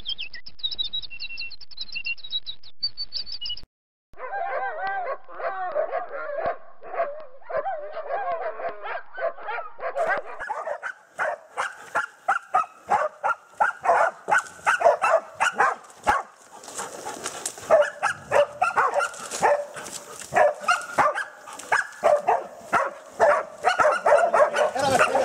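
Pig-hunting dogs barking and yelping at a bailed wild boar in quick, repeated barks, louder and busier from about ten seconds in. A short high chirping intro sound fills the first few seconds and cuts off.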